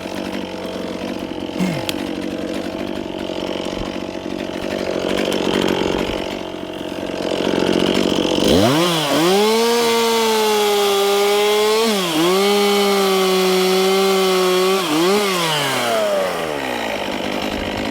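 Two-stroke chainsaw running at low speed, then throttled up to full revs about halfway through and bucking a felled spruce trunk in half, its pitch dipping briefly twice under load before it winds back down near the end.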